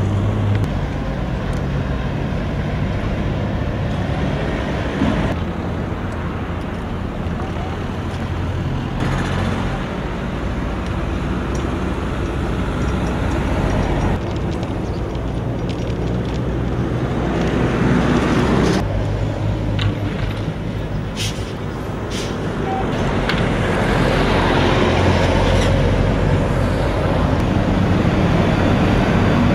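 Road traffic and running vehicle engines, a steady low engine hum under traffic noise that changes abruptly every few seconds.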